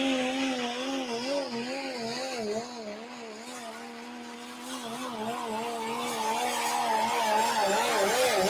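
Diesel engine of a 1995 Dodge Ram pulling truck at full power, dragging a pulling sled. Its engine note wavers up and down over and over, easing off a little about three seconds in and then climbing louder again toward the end.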